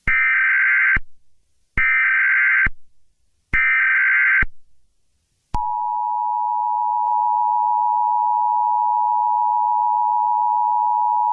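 Emergency Alert System tones: three short screeching bursts of SAME header data, each about a second long, then about five and a half seconds in the steady two-tone EAS attention signal starts and holds. The attention signal marks an emergency broadcast about to be read.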